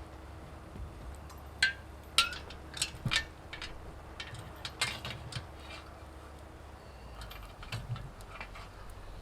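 A run of sharp clicks and knocks, several close together between about one and a half and five seconds in, the first two with a short ringing tail, over a low steady rumble.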